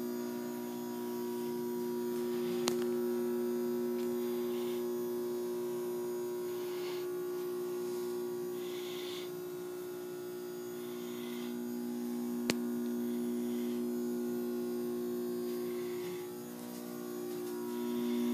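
Steady electrical machinery hum in a yacht's engine room, several pitched tones held level without change. Two sharp clicks, about three seconds in and again past twelve seconds.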